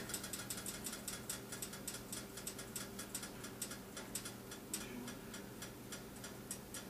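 Hot cooking oil in a pan crackling and popping: a dense run of short, sharp, irregular ticks, several a second, over a faint steady hum.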